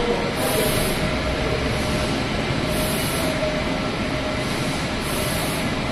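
Trujet G20 wide-format sublimation printer running: a steady mechanical rumble and hiss, with a brief high hiss recurring about every two seconds.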